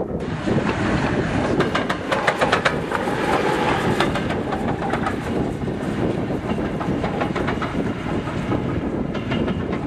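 Steam locomotive hauling a train past, its exhaust beats and wheel clatter coming in a fast run of sharp knocks, densest in the first few seconds.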